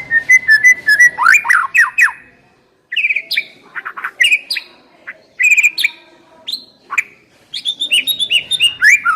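White-rumped shama (murai batu) singing a loud, varied song of rapid whistles, chirps and sharp up-and-down notes, with a short break about two and a half seconds in.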